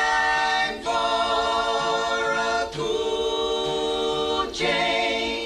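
A small group of men singing close vocal harmony in long held chords, with short breaks between three phrases.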